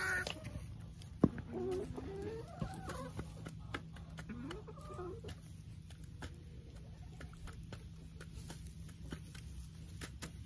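Hens clucking in short, wavering calls during the first few seconds, with a sharp click just over a second in and scattered light taps afterwards, over a low steady hum.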